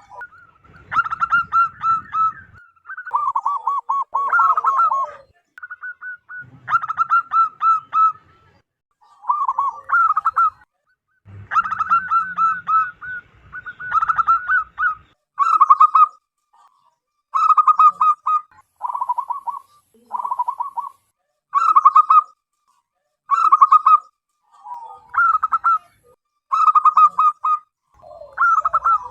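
Zebra doves cooing loudly, each phrase a quick run of short staccato coos, a new phrase every second or two, with calls at times overlapping.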